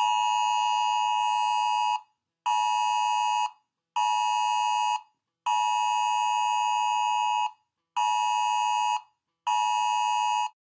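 Electronic alarm beeping: a steady buzzy tone of about 950 Hz sounding a two-second beep followed by two one-second beeps, the pattern played twice.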